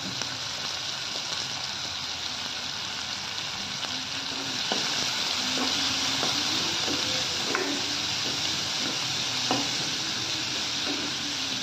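Chopped onions and garlic sizzling in hot mustard oil in a kadhai while being sautéed, stirred with a metal spatula that clicks and scrapes against the pan now and then. The sizzle grows louder about four seconds in as the stirring starts.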